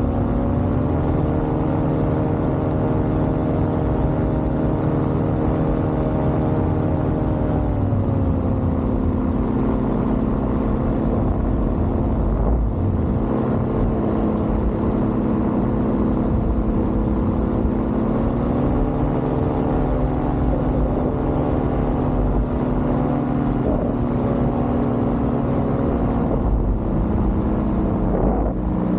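Paramotor engine and propeller running steadily in flight. The pitch rises slightly just after the start, drops around a quarter of the way in, rises again past the middle and falls near the end as the throttle is eased on and off.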